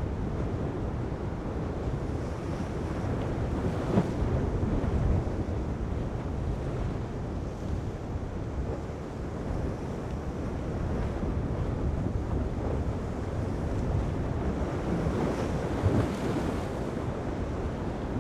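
Wind buffeting the microphone over the steady wash of rough sea and breaking waves, with two sharper surges, about four seconds in and again near the end.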